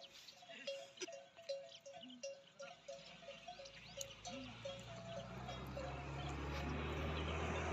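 A small bell clinks in a steady rhythm, about two to three strokes a second. From about three seconds in it is drowned by the low hum of an engine growing steadily louder.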